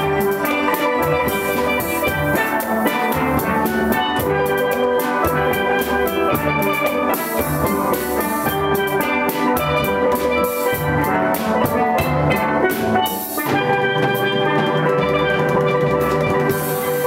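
A steel band of several steel pans playing a tune together, with drums keeping the beat. For the last few seconds the pans hold long, sustained chords.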